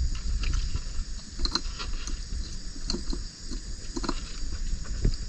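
Trammel net being hauled by hand over the side of a dugout canoe: irregular knocks and scrapes of the net and hands against the hull, about one a second, over a steady high chorus of night crickets.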